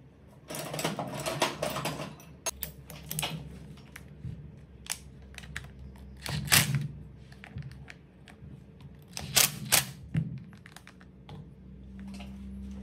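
Cordless impact driver run on the screws of a rotary hammer's gear housing: a dense rapid clatter of hammering for about a second and a half, then several short bursts and sharp clicks and knocks of metal and plastic parts being handled.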